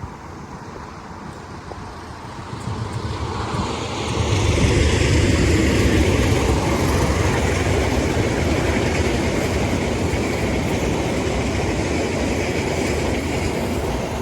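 Train passing close by: its rumble swells over a couple of seconds, then stays loud and steady through the rest.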